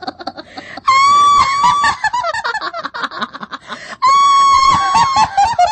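A ghost's shrill cackling laugh, a horror sound effect. Rapid high 'hi-hi-hi' pulses are broken by two long, loud shrieks, about a second in and again about four seconds in, each trailing off into cackles that drop in pitch.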